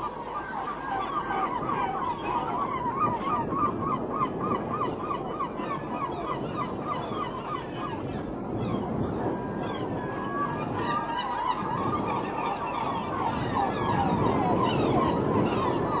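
A flock of wild birds calling together, with many calls overlapping: a fast run of repeated calls, about five a second, thins out around eight seconds in and builds up again near the end.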